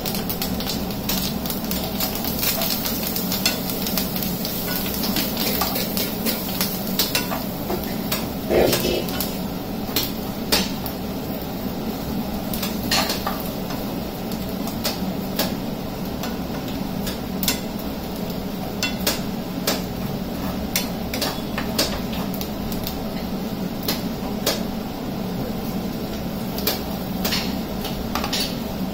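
Metal spoon stirring and scraping in a frying pan, with frequent irregular clinks against the pan over a steady hiss, and one louder ringing clank about a third of the way in.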